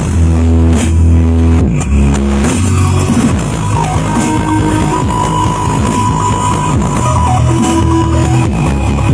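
Loud electronic music played through a large sound system during a sound check. Heavy bass notes step through the first couple of seconds, then a busier mix follows with a held high note in the middle.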